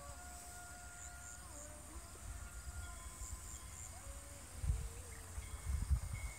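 Rural field ambience: a steady high insect chirring with short repeated chirps, and scattered thin bird whistles and calls. From about halfway in, low irregular buffeting on the phone's microphone breaks in.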